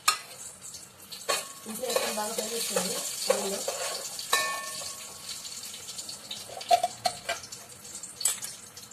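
Hot oil sizzling in a metal pot as it is stirred with a spoon, with scattered knocks of the spoon against the pot. The sizzle is strongest in the first few seconds and then dies down.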